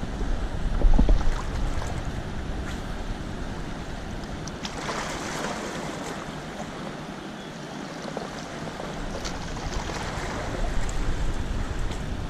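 Wind buffeting the microphone over the rush of fast river water, with stronger gusts about a second in and near the end.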